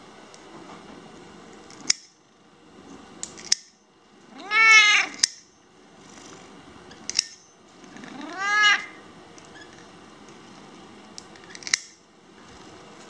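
A cat meowing twice, each a drawn-out call that rises and then falls in pitch, the protest of a cat that dislikes having its claws trimmed. Several sharp clicks of a pet nail clipper snipping its claws come in between.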